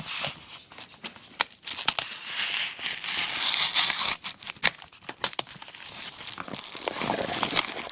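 Shipping packaging being torn open by hand: crinkling and tearing with scattered sharp crackles.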